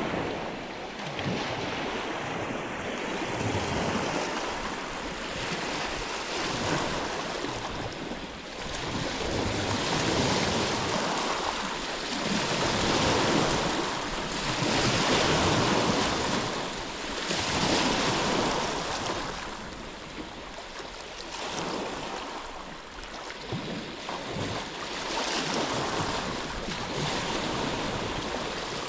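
Sea waves breaking and washing ashore, a steady rush that swells and fades every few seconds.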